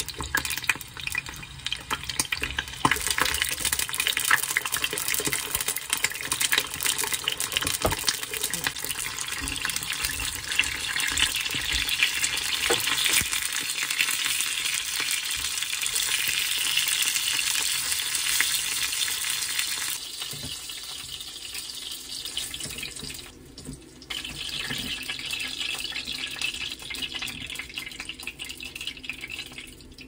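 Frozen vegetable dumplings pan-frying in a frying pan: a steady sizzling hiss full of small crackles, with occasional clicks of tongs as they are turned. About two-thirds of the way in the sizzle becomes quieter.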